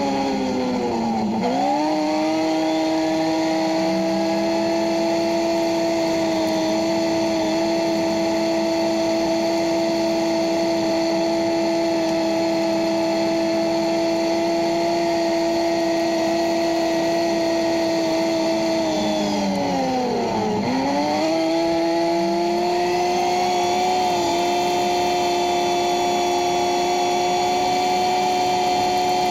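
CFMoto UForce 600 side-by-side's single-cylinder engine running at a steady road-cruising pitch. The revs dip and climb back about a second in, drop sharply and recover about two-thirds of the way through, then settle at a slightly higher pitch.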